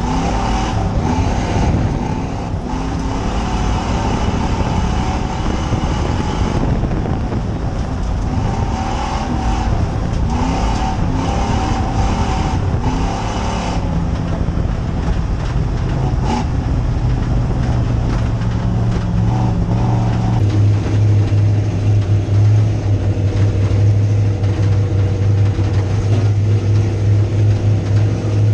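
A dirt-track stock car's engine heard from inside the cockpit, its pitch rising and falling with the throttle as it circles the oval, over a constant rushing noise. About two-thirds of the way through it switches to a steady, deeper drone.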